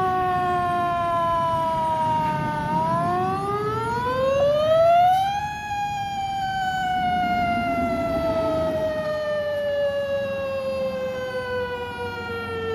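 Fire engine's siren wailing: its pitch slides down, winds back up for a couple of seconds, then falls slowly again, over the low rumble of the truck's engine.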